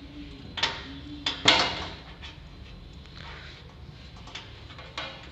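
Sharp clicks and knocks as a wire's terminal is worked onto a pin of an air-conditioner compressor's terminal block, the loudest knock about a second and a half in, followed by a few lighter ticks.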